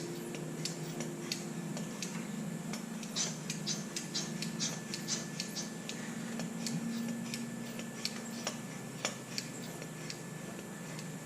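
Irregular light clicks and ticks, a few each second, over a low steady hum, as a hand pressure-tester pump is worked to pressurize a car's cooling system for a head gasket leak test.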